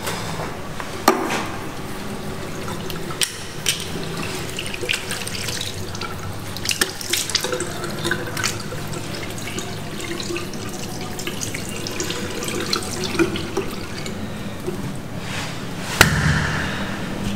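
Water running from a tap into a sink, with irregular splashing as water is scooped up to the face. There is a sharp knock about a second in and another near the end.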